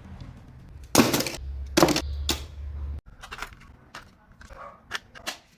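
Sharp clicks and knocks from handling a portable cassette player: three loud ones in the first half, then a string of softer small clicks.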